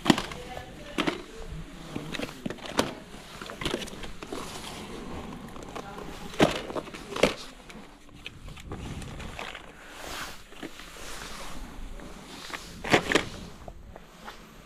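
Boxes and tins of cat food knocking and clattering into a wire shopping trolley as it is loaded from the shelves: a string of irregular sharp knocks, the loudest just after the start, twice around the middle and near the end.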